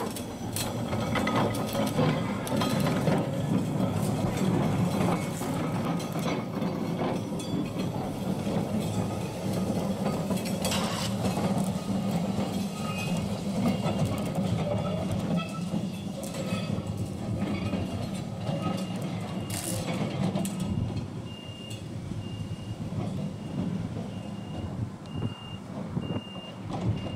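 Restored Melbourne tram No. 103 running along its track: a steady low motor hum with steel wheels rumbling and clicking over the rails, easing off a little in the last few seconds. A regular high-pitched beeping joins in about halfway through.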